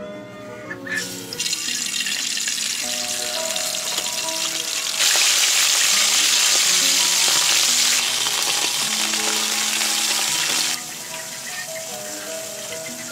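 Food frying in hot oil in a wok, a steady sizzle that starts about a second in, grows much louder at about five seconds and falls back sharply near eleven seconds. Background music plays throughout.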